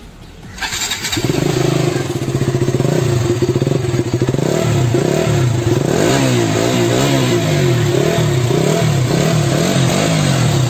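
KTM RC 200's single-cylinder engine fires up about a second in and runs. From about halfway through it is revved in a series of quick blips, its pitch rising and falling over and over.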